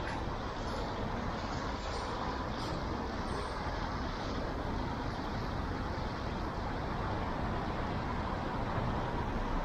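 Steady road traffic noise from passing cars and buses, an even rumbling hiss with no distinct events.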